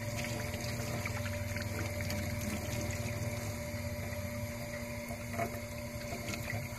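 Steady low pump hum with water running while a gutted trout is rinsed and scrubbed clean, with a few light knocks near the end.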